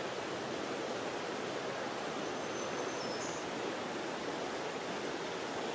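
Steady rush of a river flowing over rocks, a constant even wash of water sound.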